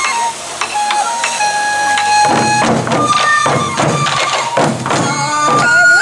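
Sansa odori festival music: a Japanese bamboo flute plays held notes, and about two seconds in the hip-slung sansa taiko drums come in with a fast, even beat of strokes.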